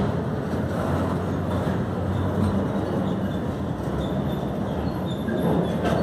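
Autorack freight cars rolling past: a steady rumble of steel wheels on rail. A faint, thin, high squeal joins from about four seconds in.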